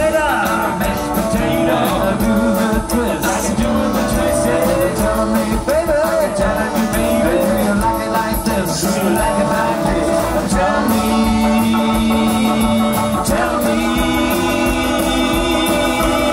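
Rock and roll band playing live: electric guitar, upright double bass, drum kit and keyboard.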